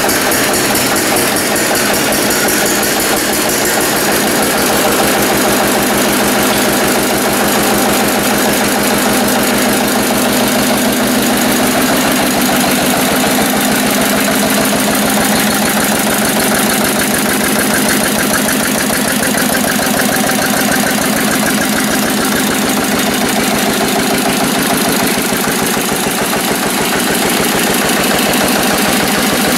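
Lister-clone 10 HP single-cylinder water-cooled diesel flywheel engine running steadily, driving its ST generator head, with an even, rapid beat of firing strokes.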